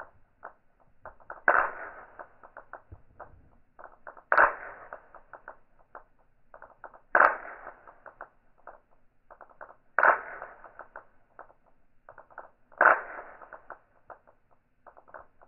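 Chrome steel balls of a seven-ball Newton's cradle clacking, sounding slowed down: five sharp clacks about three seconds apart, each followed by a trail of small rapid ticks as the balls knock against each other.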